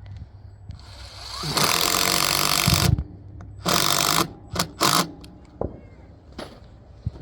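A power drill driving screws into wooden gate boards in a few bursts: one long run of about a second and a half, a shorter one, then two quick final blips.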